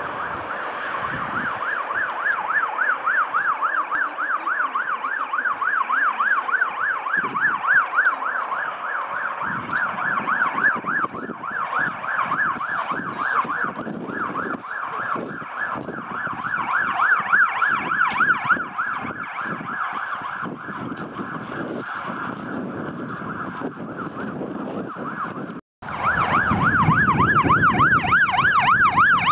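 Electronic siren of a Scania P360 fire engine on an emergency run, sounding a rapid up-and-down yelp, distant at first. After a brief break about 26 s in, the siren is closer and louder, with the truck's engine and road noise underneath.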